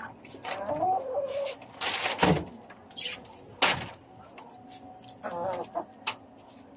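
A bird calling a few times in short wavering calls, with a few sharp knocks about two seconds in and again near the middle.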